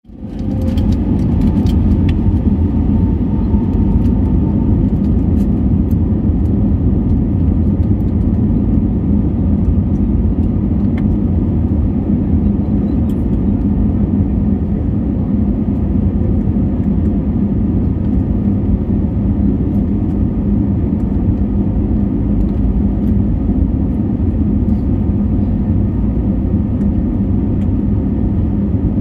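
Jet airliner's engines and airframe heard from inside the cabin as the plane taxis before take-off: a steady, loud low rumble and hum, with a faint higher whine in the first few seconds and a few light clicks.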